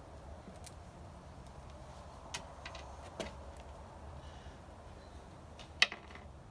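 Quiet outdoor background with a few light clicks, and one sharp click near the end.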